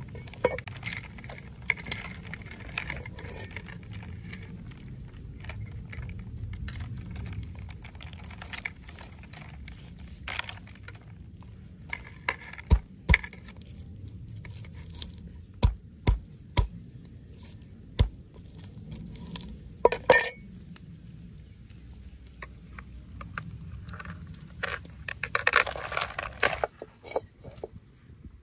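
Steel meat cleaver chopping chicken feet on a wooden cutting board: single sharp knocks at uneven intervals, loudest in a run of chops midway, over a low steady rumble. Near the end comes a short burst of metallic clattering as a wok is handled on the charcoal stove.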